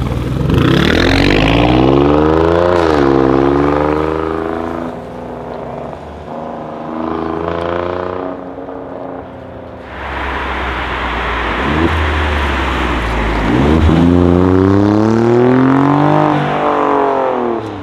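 Alfa Romeo Giulia Quadrifoglio's 2.9-litre twin-turbo V6 accelerating hard. Its engine note rises, drops at an upshift and rises again, twice, with a quieter stretch of engine noise in between.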